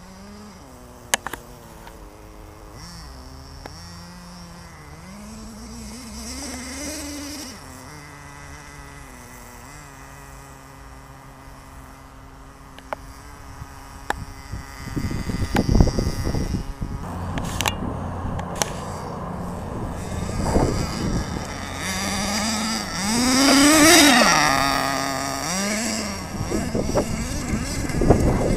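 Small two-stroke nitro engine (.18 size) of a 1/10 RC monster truck revving up and down as it is driven, growing louder over the second half and loudest as it passes close near the end, its pitch rising then falling. Wind buffets the microphone in the second half.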